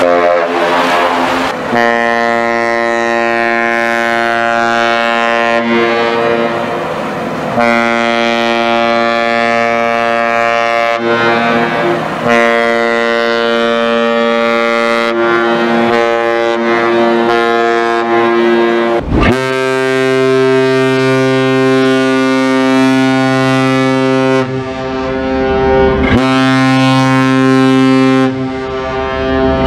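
Great Lakes bulk freighters' ship horns sounding a series of long, steady blasts with short breaks between them. About nineteen seconds in, a deeper, louder horn takes over, also in long blasts.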